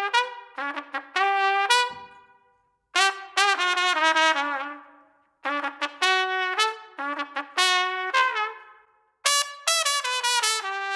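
Plastic trumpet played solo: short melodic phrases of separate notes with brief pauses between them.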